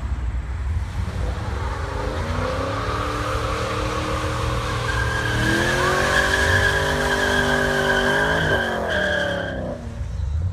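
Pontiac G8 GT's 6.0-litre V8, with long-tube headers, a Borla cat-back exhaust and an aftermarket cam, revving hard under full-throttle acceleration and rising in pitch through the revs. From about five seconds in, the tyres squeal steadily in wheelspin, then the car's sound drops away near the end.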